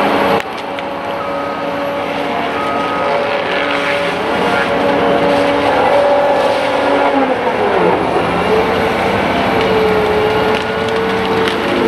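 CAT 522B tracked feller buncher running, its diesel engine and hydraulics working hard with a steady mechanical whine. About eight seconds in the whine drops sharply in pitch and then settles back to a steady tone.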